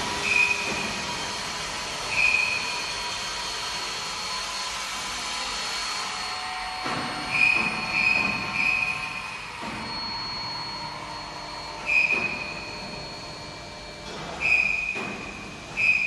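Medium-frequency induction copper melting furnace running: a steady high-pitched whine with about eight short, louder high squeals at irregular intervals.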